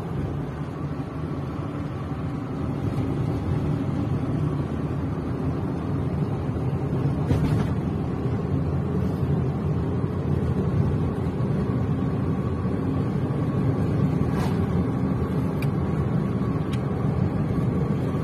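Car being driven, heard from inside the cabin: a steady low hum of engine and tyres on the road, with a couple of faint clicks.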